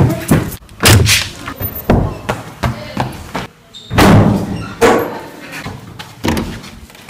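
Doors banging and slamming several times, a few loud thuds with an echo, as the doors are pushed open and swing shut.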